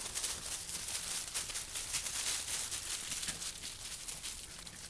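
Footsteps crunching and rustling through dry fallen leaves, a quick irregular run of crackles from a walker's steps.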